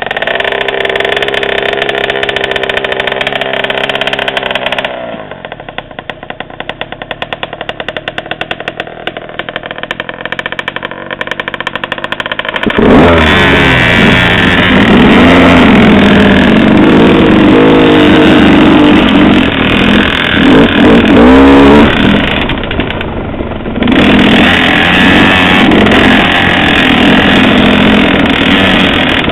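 Dirt bike engines. A KTM 50 mini bike's small two-stroke engine runs at steady revs, then its pitch falls and it fades about five seconds in. From about thirteen seconds a much louder motorcycle engine close by revs up and down, eases off briefly near twenty-three seconds and then runs on steadily.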